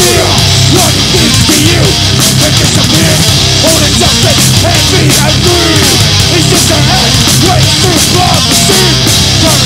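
Punk/heavy metal band playing live, recorded straight from the sound desk: distorted electric guitar, bass guitar and drums with frequent cymbal hits, loud and steady.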